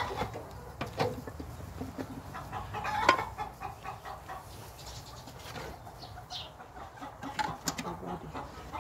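Domestic hens clucking, with scattered clicks and a sharp knock about three seconds in from handling the metal wax press and its wet press cloth.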